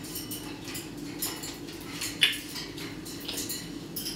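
Pet parrot making a run of short clicks and squeaky chirps, with one louder, sharper call about two seconds in, over a steady low hum.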